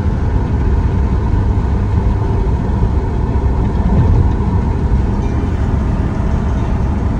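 Steady low rumble of a vehicle on the move, even and unbroken.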